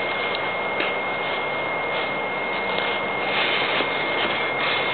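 BioLite wood-burning camp stove burning with its built-in fan running: a steady rushing hiss with a thin, constant high whine over it, swelling a little twice near the end.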